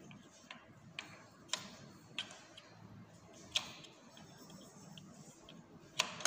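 Scattered sharp metal clicks of a screwdriver working the adjusting screw of a replacement roller in a sliding balcony door's metal bottom rail, about seven at uneven intervals, the loudest near the middle and at the end.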